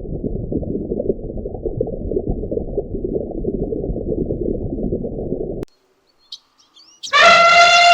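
A dense, muffled low noise that cuts off suddenly about five and a half seconds in, then a few faint bird chirps, and near the end the start of a loud, drawn-out animal call with a clear pitch.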